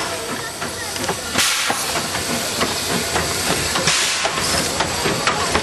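Small narrow-gauge steam tank locomotive moving off slowly: a steady steam hiss, with two loud hissing chuffs about two and a half seconds apart and light knocks in between.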